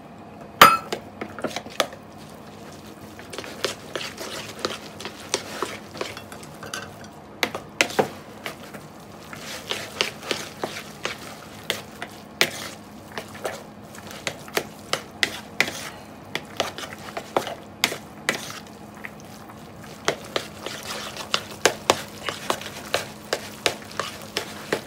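Chopsticks clicking and scraping against a bowl while tossing boiled spaghetti, in quick irregular taps.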